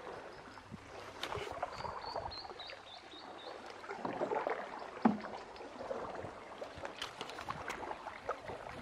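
Canoe paddling on a river: irregular paddle strokes and water splashing, with scattered light knocks. A short run of high chirps about two seconds in, and a sharp knock about five seconds in, the loudest sound.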